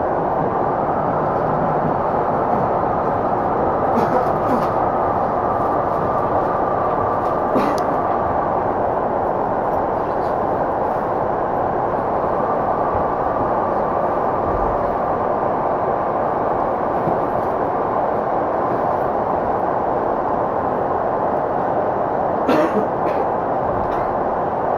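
Cabin running noise of a Tokyu 5050-series commuter train (set 5177F, whose running sound differs from other 5050s): a steady rumble of wheels on rail with a faint thin motor whine, a few short clicks, as the train slows into a station.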